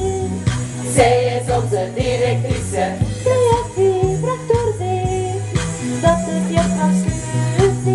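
A group of women singing along to a pop backing track with a steady beat, their amplified voices carrying the melody over held bass notes.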